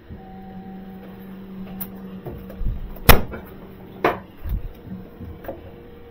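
A steady low machine hum with a few sharp clacks and dull knocks over it. The loudest clack comes about three seconds in and another a second later.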